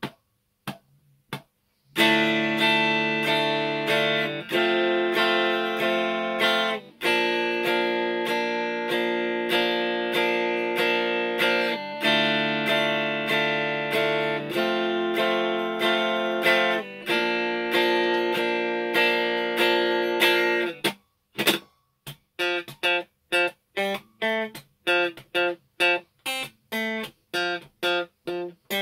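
Electric guitar playing chords: after a brief pause, full strummed chords that ring and change every couple of seconds, then from about two-thirds through, short choppy muted chord stabs, about three a second.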